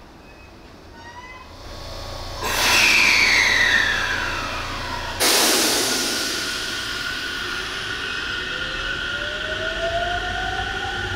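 JR Central 313 series electric train at the station: a sudden loud rush about two and a half seconds in with a falling whine, a second sudden rush about five seconds in, then a motor whine rising steadily near the end as the train picks up speed.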